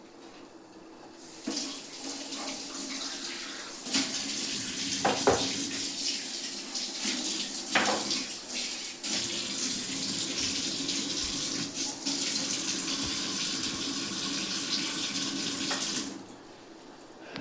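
Kitchen tap running into the sink for about fourteen seconds, then shut off near the end; the splash changes now and then as the stream is interrupted.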